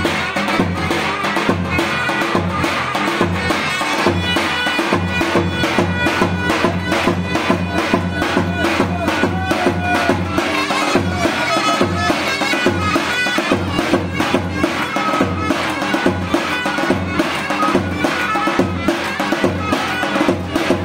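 Traditional folk dance music: a loud reed wind instrument, like a zurna or bagpipe, plays a continuous melody over a steady drum beat.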